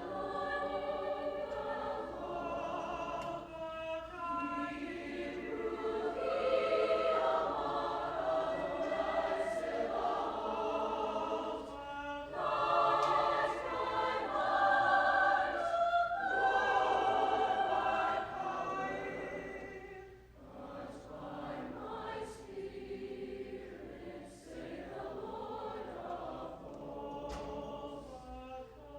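High school choir singing a held, sustained passage, swelling louder through the middle and falling to a softer level for the last several seconds.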